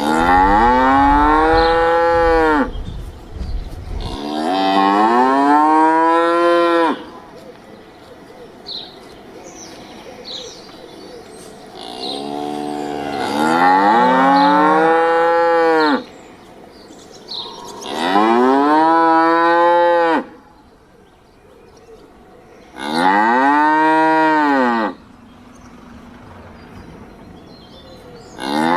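A cow mooing repeatedly: about six long, loud moos a few seconds apart, each rising and then falling in pitch.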